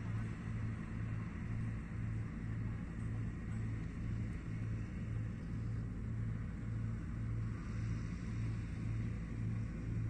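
Combine harvester's diesel engine running steadily, with a low throb pulsing about twice a second.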